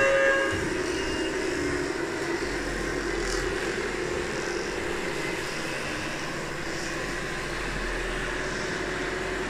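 Steady whirring and hum of radio-controlled scale construction models working: electric drive motors and hydraulic pumps. A brief tone with several pitches sounds right at the start.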